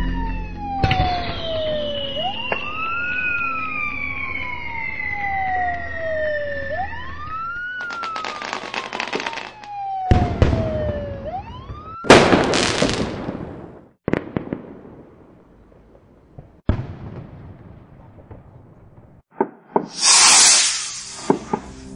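Fireworks display: a siren-like whistle rises quickly and falls slowly, over and over, for the first ten seconds or so. Then fireworks burst with sharp bangs and crackling, the loudest blast about halfway through and another long burst near the end.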